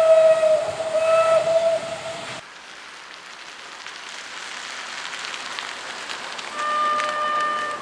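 A train's horn sounds a long held note that breaks off briefly and then cuts off abruptly about two and a half seconds in. After a steady hiss, a fire train's locomotive horn sounds a greeting near the end.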